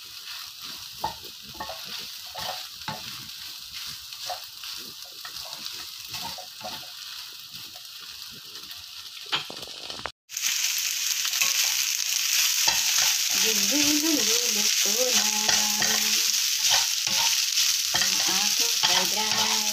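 Wooden spatula stirring and scraping fried rice around a nonstick frying pan, over the sizzle of the rice frying. About halfway through, after a brief dropout, the sizzle turns suddenly louder and steadier.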